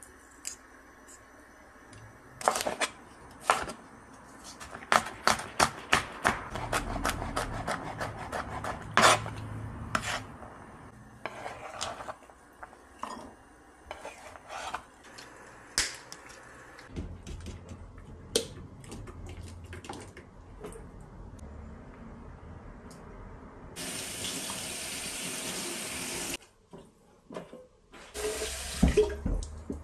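Knife chopping on a plastic cutting board: a long run of sharp knocks, loudest in the first half. Near the end a kitchen sink tap runs in two short spells.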